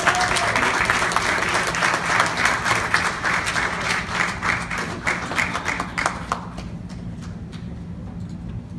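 Audience applauding with dense clapping that dies away about six seconds in, leaving a low steady hum.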